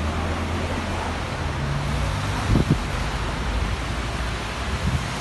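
Steady street traffic noise with a low engine rumble that fades in the first second, and two brief thumps about two and a half seconds in.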